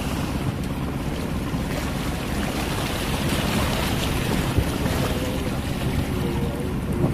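Wind buffeting the microphone over the splash and rush of choppy waves alongside a small sailing yacht under way.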